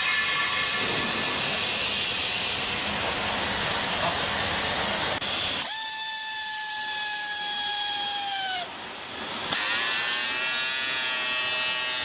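Handheld pneumatic strapping tool on green plastic strap: a steady hiss of air, then about six seconds in the air motor whines steadily for about three seconds as it tensions the strap, dropping in pitch at the end. After a short lull a second, buzzier whine starts up.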